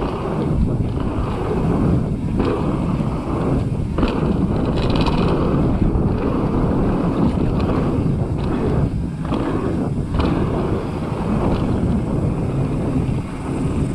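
Wind rushing over an action camera's microphone as a mountain bike descends a dry dirt trail, mixed with the tyres rolling on dirt and gravel and scattered brief knocks from the bike over bumps.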